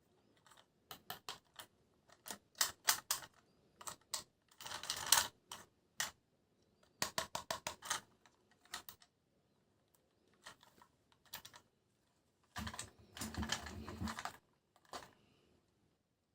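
Toy packaging being handled and opened: a scattered run of sharp clicks and taps, with a longer rustle about four seconds in and another about twelve to fourteen seconds in.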